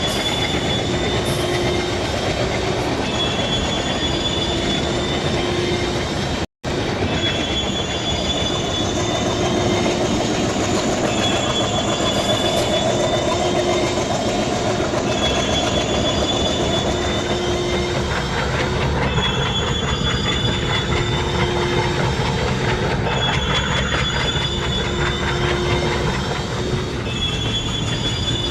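Indian Railways WDM-3D diesel locomotive and train running, a steady rumbling noise with a high-pitched wheel squeal that comes and goes about every four seconds. The sound cuts out completely for a split second about six seconds in.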